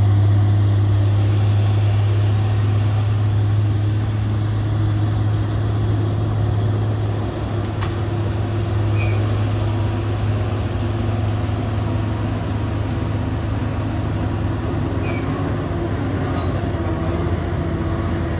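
Heavy truck's diesel engine running with a steady low drone.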